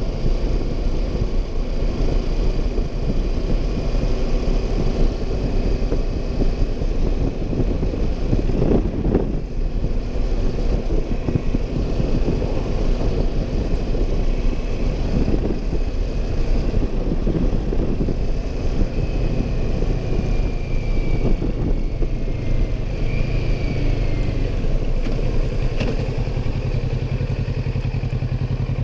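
Motorcycle engine running on the road with wind rushing past, heard from the rider's seat. About two-thirds of the way through, a steadier low hum comes in under the rumble.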